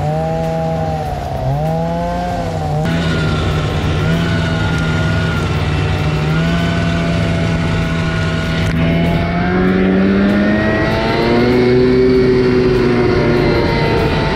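Arctic Cat snowmobile engine running under load while towing gear sleds, its pitch dipping and rising with the throttle. About three seconds in, the sound jumps to the rider's seat on the moving machine, where the engine holds a steady note that climbs near the end.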